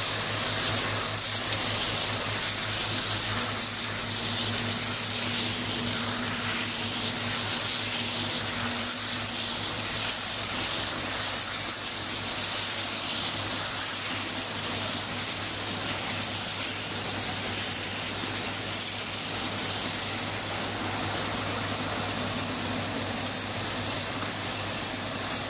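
Diesel-engined silage baler and wrapping machine running steadily, with a constant low hum under a dense mechanical hiss.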